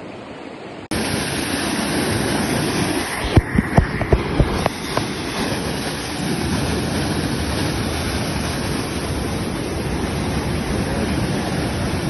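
Mountain stream and waterfall rushing over rocks, a loud, steady rush of water that starts suddenly about a second in. A few low thumps come through about three to five seconds in.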